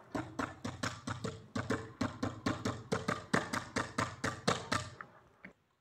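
Rapid hollow knocking at a water pipe held to a plastic bottle, about four knocks a second, while the water is not flowing. The knocks thin out and fade near the end.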